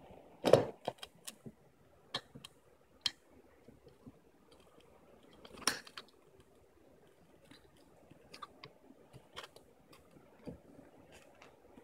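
Scattered light clicks and metal clinks of small curtain-track parts and screws being handled, the loudest about half a second in and again near six seconds.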